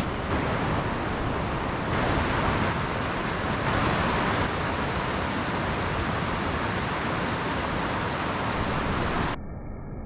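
Steady rush of flowing creek water. About nine seconds in it cuts to a quieter, duller rush of water cascading over rocks.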